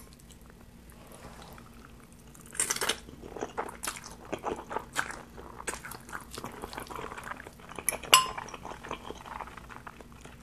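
A metal fork clinking and scraping against a glass bowl of instant noodles, mixed with close-miked chewing of the noodles. One sharp, ringing clink of the fork on the bowl stands out near the end.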